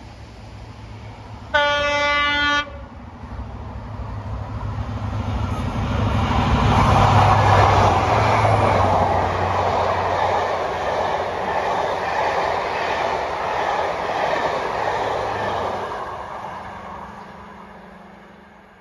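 Class 43 HST diesel power cars sounding one horn note about a second long as they approach, then the train passing at speed. The engine rumble and running noise build to a peak, hold while the coaches go by, and fade away as the train recedes.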